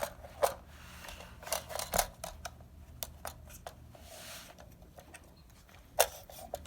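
Eagle Arms AR-15 rifle, chambered in 7.62x39, being handled after being checked clear: a series of sharp metallic clicks from its parts being worked, a brief sliding sound about four seconds in, and a louder click near the end.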